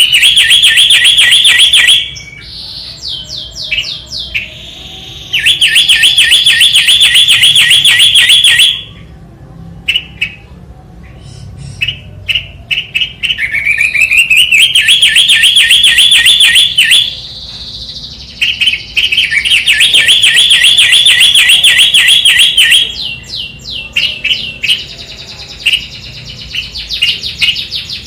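A songbird singing loudly in long, fast trills of a few seconds each, the notes sweeping upward at the start of some phrases, with scattered short chirps in the pauses between them.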